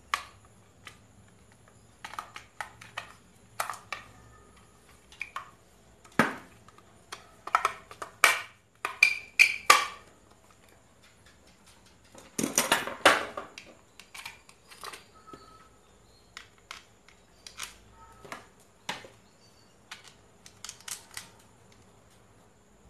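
Handling noise from a non-steam electric iron being reassembled: scattered clicks, taps and clatter as its metal soleplate and plastic housing are turned over and set down on a wooden workbench, with a longer scraping rattle about halfway through.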